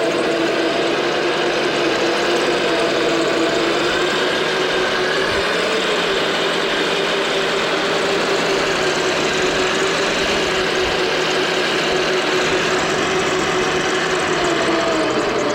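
Toy RC M1A2 Abrams tank running: a steady whine of its small electric drive motors and gears, the pitch wavering slightly as it goes.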